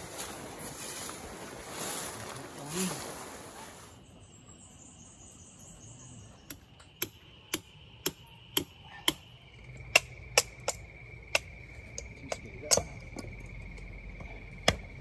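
Even rushing noise for the first four seconds, then insects trilling steadily at a high pitch. From about six seconds in, a run of sharp single clicks comes about twice a second.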